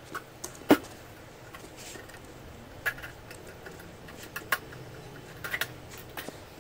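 Scattered clicks and knocks of a table fan's plastic rear housing and screwdrivers being handled as the housing is opened up, with a single sharp knock under a second in the loudest.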